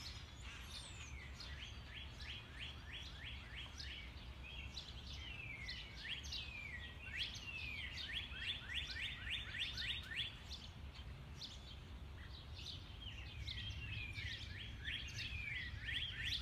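A loud chorus of many songbirds calling from the trees: rapid runs of short chirps, several a second, overlapping with downward-sliding notes. The calling eases briefly about two-thirds of the way through, then builds again. A steady low rumble lies underneath.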